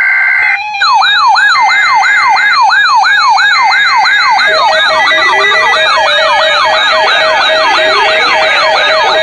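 Electronic warning siren in a fast yelp: a tone sweeping down in pitch about four times a second, after a short steady tone at the start. From about halfway, steady beeping tones are layered over the sweeps.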